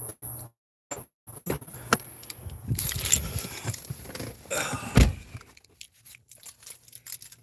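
Someone climbing into a pickup truck: shuffling and handling noise, then the truck's door shut with a single heavy thump about five seconds in.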